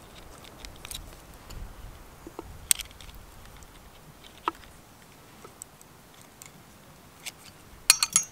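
Scattered small metallic clicks and taps of pliers and copper wire against a steel forming jig as the wire is bent round, with a sharper cluster of clicks near the end.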